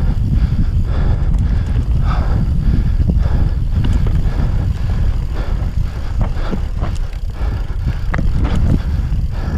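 Mountain bike descending a bumpy dirt trail: wind buffets the microphone in a steady low rumble, over which the bike rattles and knocks irregularly as it hits roots and bumps.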